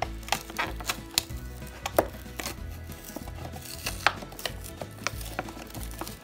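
Stiff clear plastic blister packaging being pried and peeled off a cardboard toy card, crackling and clicking irregularly, with the sharpest cracks about two and four seconds in.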